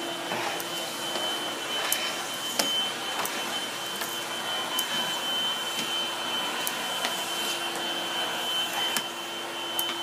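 Vacuum cleaner running steadily: a constant rushing hiss with a steady low hum and a thin high whine, with a few faint clicks.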